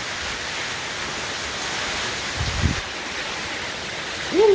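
Heavy tropical-storm rain pouring down in a steady hiss, with a brief low rumble about halfway through.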